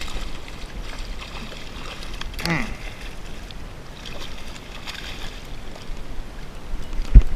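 A hooked largemouth bass splashing and thrashing at the water's surface as it is played in to the bank. A brief voice is heard about two and a half seconds in, and a sharp low thump near the end.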